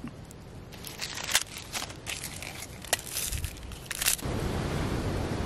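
Small knife cutting through sundae (Korean blood sausage) on a wooden cutting board: a run of crisp clicks and crunches as the blade chops through the sausage and taps the board. About four seconds in, the clicks stop and a steady rushing noise takes over.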